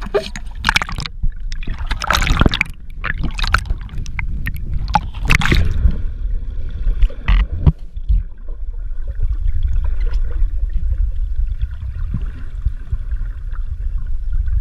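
Water splashing and sloshing hard against an action camera at the surface for the first six seconds or so, then a steady muffled underwater rumble and gurgle as it stays submerged.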